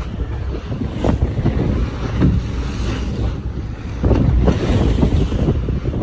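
Wind buffeting the microphone on a boat at sea, with waves washing against the hull; the noise swells in gusts and grows louder about two-thirds of the way in.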